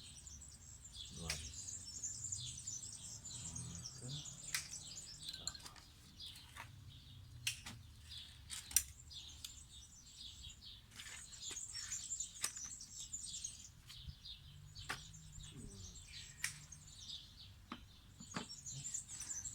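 Small birds chirping and twittering in repeated bursts, with a few light clicks and knocks scattered through.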